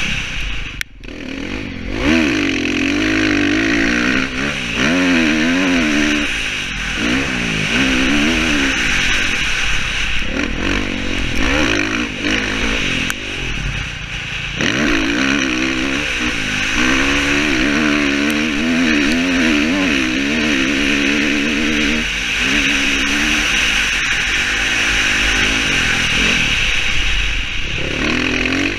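Dirt bike engine revving up and falling back as the rider works the throttle along a trail, over steady wind noise on a helmet-mounted microphone. The throttle is shut off briefly about a second in, and again several times later.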